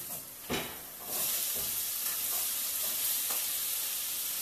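A knock, then vegetables, red and green bell pepper strips, sizzling steadily in hot coconut oil in a sauté pan. The sizzle starts about a second in as they go into the pan, with a few faint clicks of stirring.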